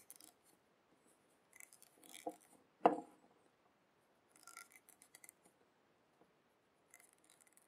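Faint rustling of a fluffy cotton wick being handled and drawn through a vape atomizer coil, in a few short spells, with a light knock about three seconds in.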